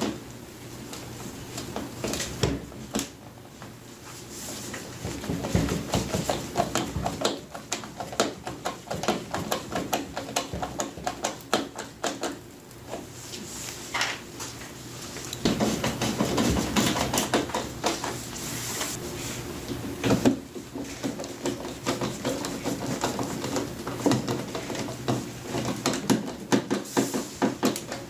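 Screws being driven into the bottom of a sheet-metal oven door: a long run of quick clicks, taps and light metal rattles from the screwdriver and door panels, busiest in the second half.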